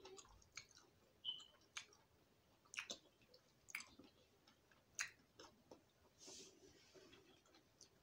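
Quiet close-up chewing: a person eating with wet mouth clicks and smacks, about five sharp ones in the first five seconds, then a short breathy hiss about six seconds in.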